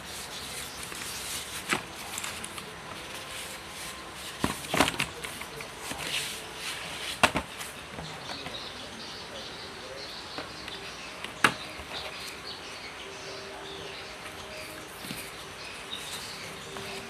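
A mechanical keyboard being handled: a few sharp clicks and knocks, spaced seconds apart, over a steady hiss.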